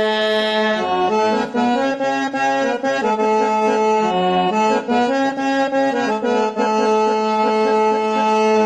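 Background music, an instrumental break in a devotional folk song: a free-reed instrument holds one chord, then from about a second in plays a quick melody over a held low drone note.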